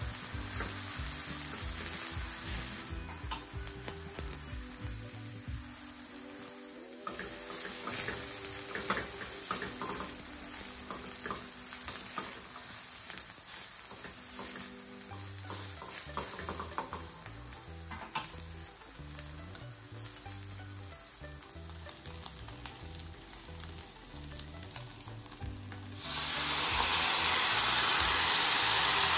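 Sliced onion and green pepper sizzling in a hot nonstick frying pan beside fried tofu, with tongs clicking against the pan as the vegetables are tossed. Near the end a soy-and-ginger sauce is poured into the pan and the sizzle jumps suddenly to a loud, steady hiss.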